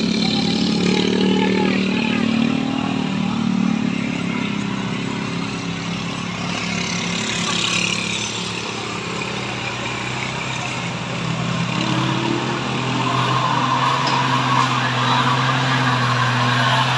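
Hino truck's diesel engine running as the loaded truck climbs toward and up to the listener, getting louder over the last few seconds. A motorcycle goes by in the first couple of seconds.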